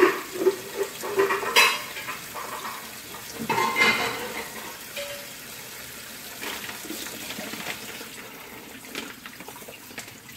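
Dishes and utensils clattering: a few loud knocks and rattles in the first four seconds, then fainter scattered clicks over a steady faint hiss.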